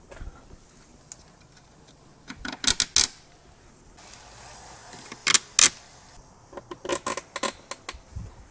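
Plastic trim clips clicking as they are pressed partway into the mounting holes of a carbon-fibre rear diffuser panel. Two pairs of sharp clicks a few seconds apart, then a quicker run of smaller clicks near the end.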